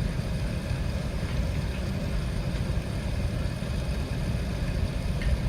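Steady low rumble inside the cabin of an Airbus A380 taxiing after landing.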